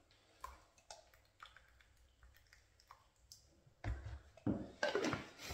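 Small plastic clicks and knocks as the plastic paint cup and lid of an electric paint spray gun are handled and fitted, with louder handling noise about four seconds in and near the end.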